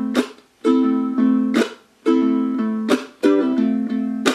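Low-G ukulele strumming chords in a steady strum pattern, each chord ringing between strokes, with a sharper accented stroke about every second and a half. The chord changes about three seconds in.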